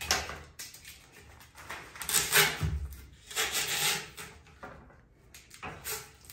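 Masking tape being pulled off its roll and wrapped around the end of a rocket motor casing, in about four separate noisy pulls, with a low bump about two and a half seconds in.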